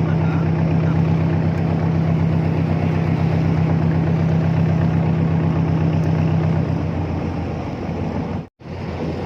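Boat engine running steadily with an even pulse, then easing off and going quieter about seven seconds in as the boat slows. There is a brief dropout near the end.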